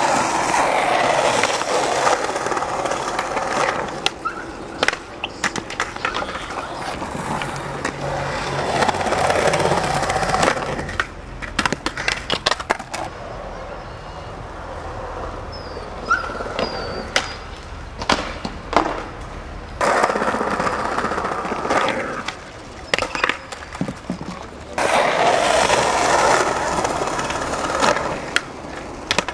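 Skateboard wheels rolling over concrete in several long passes, with sharp clacks in between from boards popping and landing.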